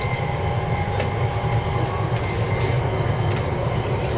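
JR East 253-series electric limited express running, heard from inside the car: a steady low rumble of wheels on rail with a faint steady whine and a few light clicks.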